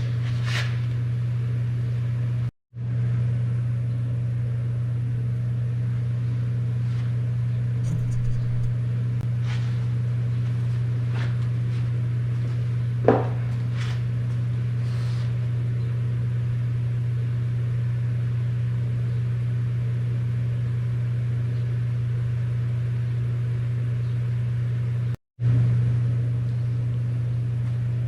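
Smoke-test rig for finding vacuum leaks, running on compressed air: a steady low mechanical hum. It cuts out abruptly twice, with a faint click about halfway.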